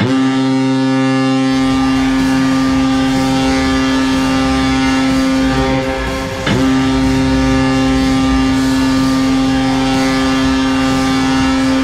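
Fan-made Vegas Golden Knights hockey goal horn: one deep, steady horn blast, broken once by a short dip about six and a half seconds in, then sounding again at the same pitch.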